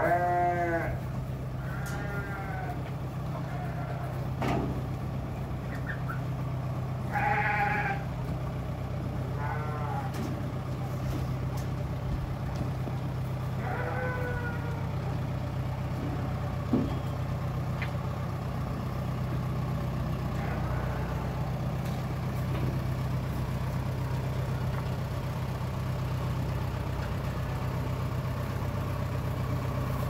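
Cattle calling several times, short bawls about five times in the first fifteen seconds, then none, over a steady low mechanical hum.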